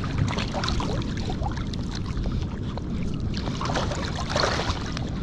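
Sea water sloshing and splashing close to the microphone, many small splashes over a steady low rumble.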